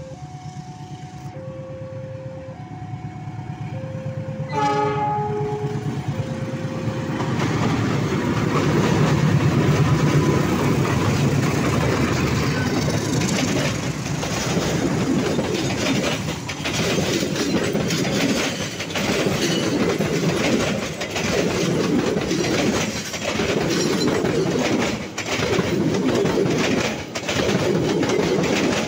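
Level-crossing alarm sounding two alternating tones, then a short blast of a diesel locomotive's horn about five seconds in. A double-headed diesel passenger train then passes close by, its locomotives running and the coach wheels clattering rhythmically over the rail joints.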